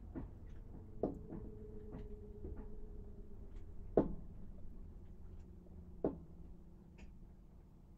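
Faint hum of the mast-top camera gimbal's motors as the camera pans, its pitch shifting after each move, with scattered light clicks and knocks, the sharpest about one, four and six seconds in.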